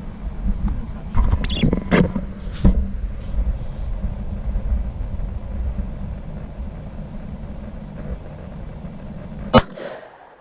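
A single pistol shot about nine and a half seconds in, sharp and much louder than anything else, over a steady low rumble. A few fainter knocks come in the first three seconds.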